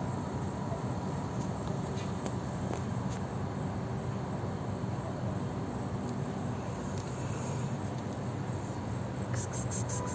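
Steady low outdoor background rumble, with a fast run of high insect-like chirps that sets in near the end.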